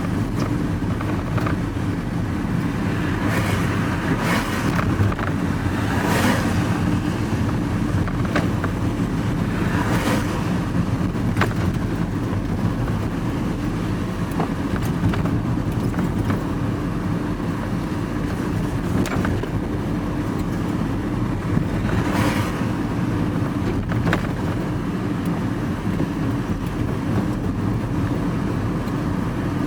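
Steady engine drone and road noise from inside a vehicle's cab while driving, with a few brief hissy swells now and then.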